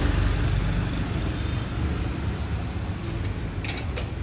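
Low rumble of road traffic going past, easing off over the first couple of seconds, with a few light clicks near the end.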